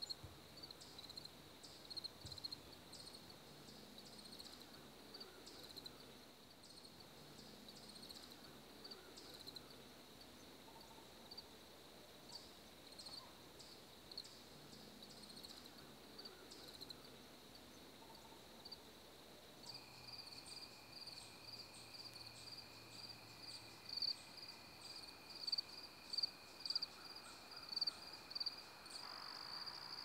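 Crickets chirping, a faint run of short, high chirps repeating a few times a second. About two-thirds of the way in, the chirping turns faster and louder, and a steady, lower insect trill sounds underneath it.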